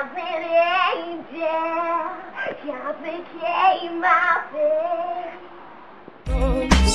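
A girl singing solo, phrase by phrase, her pitch wavering on the held notes, with a low steady note beneath. About six seconds in, loud recorded pop music with a heavy beat suddenly cuts in.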